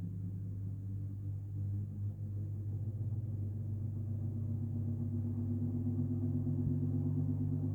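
National 401SM electric fan with a KDK KB30B motor starting up: a steady low electrical hum, with a motor whine that comes in after about two seconds and grows steadily louder as the motor gathers speed.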